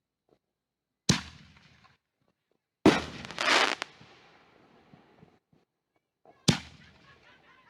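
Consumer aerial fireworks going off outdoors: three sharp bangs, each trailing off, about a second, three seconds and six and a half seconds in. The middle bang is followed within a second by a louder, longer crackling burst.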